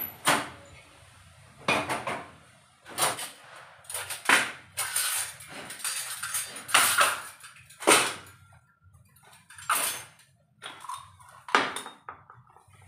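A cloth rag rubbed over a gritty, sand-dusted kitchen counter slab in a run of separate rough wiping strokes about a second apart. Steel utensil stands clink now and then as they are moved aside.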